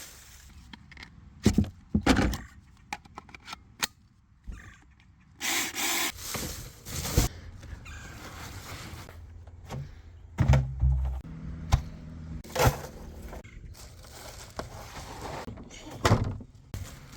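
Cut tree branches being handled and packed away: scattered knocks and scrapes of wood, short bursts of rustling leaves, and a few heavy thuds.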